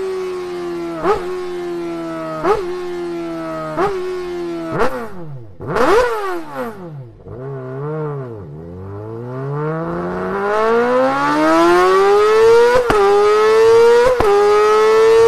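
Honda CBR1000RR-R Fireblade SP's inline-four at high revs through its exhaust, the pitch sinking over the first few seconds with short sharp blips, dropping low about halfway through, then climbing back to a high steady note with a few more quick blips near the end.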